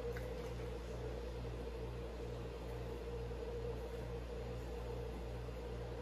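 Steady low mechanical hum of room background noise, with a faint regular pulse about twice a second.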